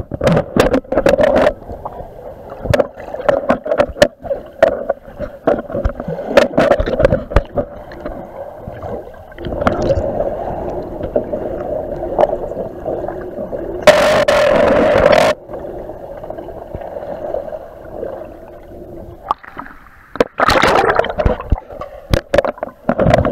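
Muffled underwater sound in a swimming pool: water sloshing and gurgling with many sharp knocks and clicks. Fourteen seconds in, a loud rush of noise lasts about a second and a half.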